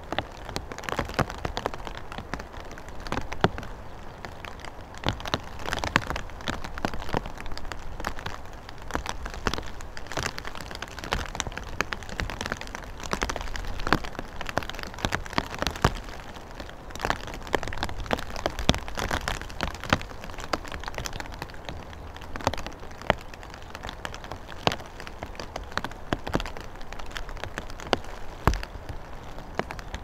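Rain falling, with drops striking close to the microphone as many irregular sharp ticks over a steady hiss.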